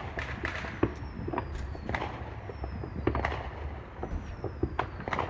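Neighbourhood Fourth of July fireworks and firecrackers popping and cracking at irregular intervals over a low rumble, with a high whistle falling in pitch a few times.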